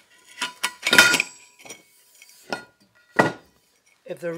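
Short metallic knocks and clinks with a brief ringing after each, as an aluminium extrusion rail and a steel plate are handled and shifted on a workbench. The loudest knock comes about a second in, another about three seconds in.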